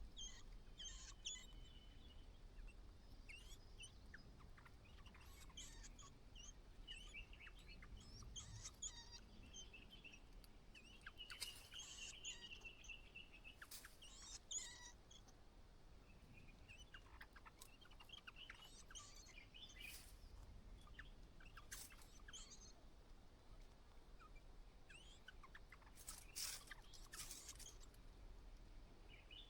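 White-browed laughingthrushes calling: faint, scattered short chirps and calls, with a few sharp clicks among them.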